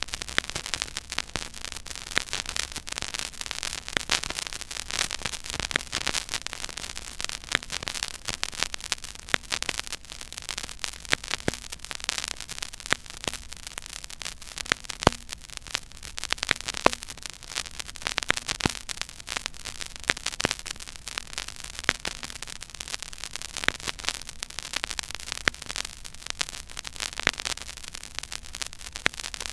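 Silent groove of a 12-inch vinyl record at 33⅓ rpm playing under the stylus: steady surface hiss with dense crackle, many small clicks a second and now and then a louder pop, over a faint low rumble.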